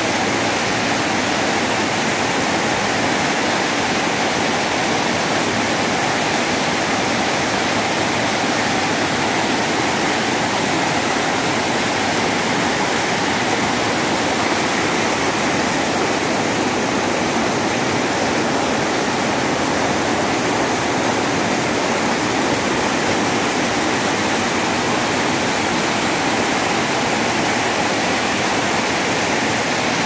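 Waterfall, white water cascading over tiers of rock ledges in a loud, steady rush.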